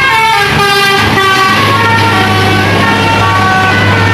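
Tour bus telolet horn playing a tune: a set of pitched air horns sounding a quick run of notes, then longer held notes, over a steady low engine drone.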